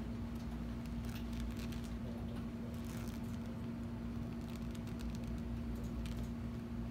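Plastic sterile cover on an ultrasound probe crinkling faintly in scattered rustles and clicks as the probe is slid over gel on the skin of the leg, over a steady low electrical hum from the equipment.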